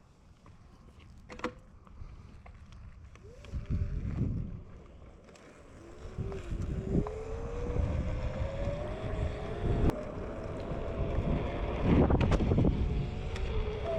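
TurboAnt V8 electric scooter's 450-watt motor whining as the scooter pulls away, its pitch rising with speed and then holding steady, with wind rumbling on the microphone.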